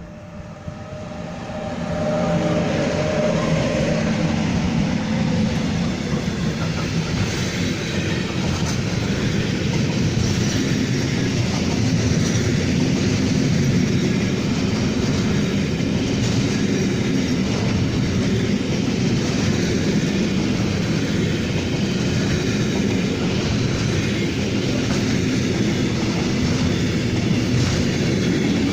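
A train running past on the station tracks: the rumble and wheel noise build up over the first two seconds, then hold loud and steady.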